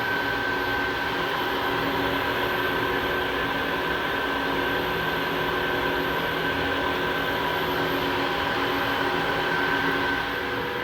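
Electrovert Vectra ES wave solder machine running: a steady drone from its convection preheater blowers and conveyor drive, with a few steady whining tones over airy fan noise. It drops a little just before the end.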